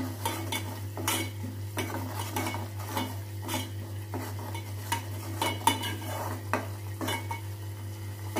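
Metal spoon stirring thick masala paste in an aluminium handi, with repeated irregular scrapes and clinks against the pot's sides and bottom as the ground masala cooks in oil until the oil separates. A steady low hum runs underneath.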